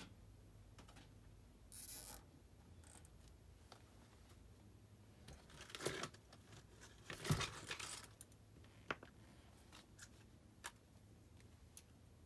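Quiet handling noises: a short rustle about two seconds in, then rattling and rustling of tools being rummaged in a soft-sided tool bag around the middle, followed by a few small sharp clicks.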